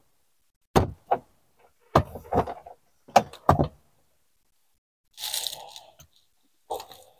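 A run of sharp metallic knocks and clanks from a socket extension and other hand tools being handled against the car's dashboard, mostly in pairs, with a short rustling scrape about five seconds in and one last knock near the end.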